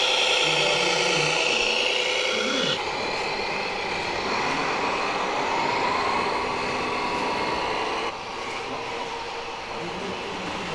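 Radio-controlled scale model Caterpillar D25D articulated dump truck driving loaded, its drive whining steadily with a tone that rises in pitch midway. The sound changes abruptly twice, at about three and eight seconds in.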